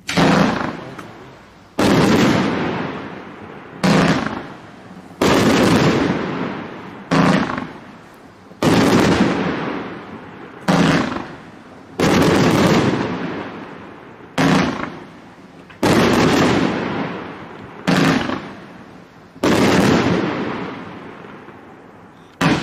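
A 49-shot 500-gram consumer fireworks cake (1.4G) firing: a loud report every one to two seconds, about a dozen in all, each fading away over a second or more.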